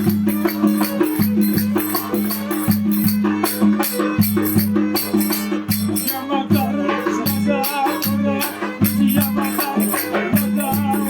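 Turkish folk dance music: a steady low drone under a melody, driven by a regular percussion beat of about two or three strokes a second.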